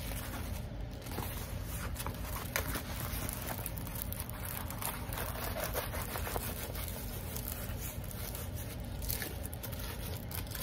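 Plastic packaging and a rolled diamond painting canvas with its plastic film rustling and crinkling as they are handled, with a few sharp clicks and scrapes.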